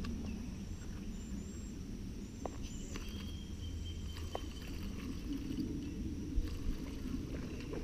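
Outdoor ambience beside a stream: a steady low rumble with faint high bird chirps, and two soft knocks about six and a half seconds in.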